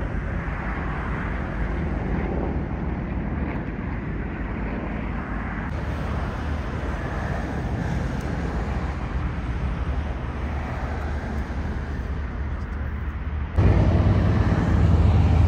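Steady drone of piston-engined propeller aircraft flying overhead in a formation of three, heard over open-air rumble. About two seconds before the end it cuts suddenly to a louder, deeper rumble.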